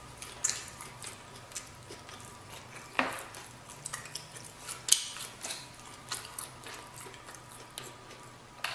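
Close-up eating sounds: irregular short wet clicks and smacks of chewing, about one or two a second, the loudest about three and five seconds in.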